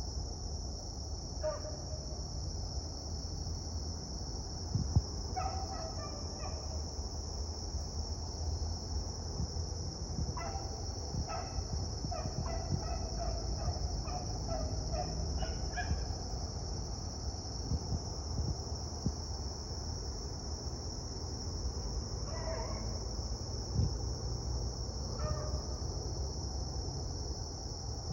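Beagles baying while running a rabbit, in strings of short, repeated barks with pauses between. The barking is thickest in the middle stretch and thinner near the end.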